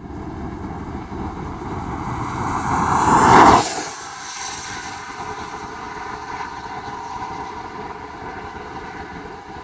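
Wind rumbling on the microphone, with a vehicle passing close by that swells to its loudest about three and a half seconds in and then drops away sharply, leaving a steadier, quieter wind noise.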